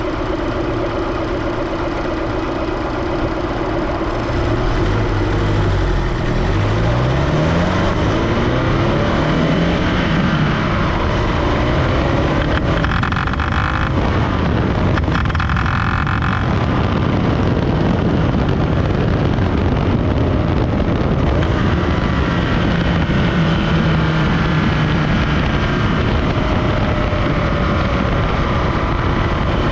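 Supercharged Scion FR-S 2.0-litre flat-four engine running under load while the car is driven, its pitch falling and rising with revs early on, with wind noise. Two short higher tones sound in the middle. The noise that the owner calls weird comes only under load.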